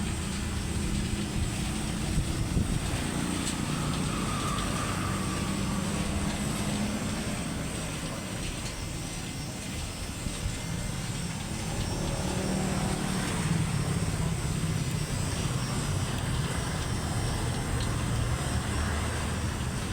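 A steady low rumble like road traffic, swelling and easing slowly, with no sharp knocks or clicks.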